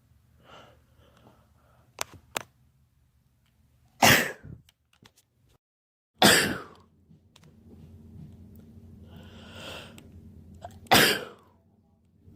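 Three sneezes from a man's allergy sneezing fit, each a single sharp blast, with a few seconds between them. A drawn-in breath comes before the third. Two short clicks sound about two seconds in.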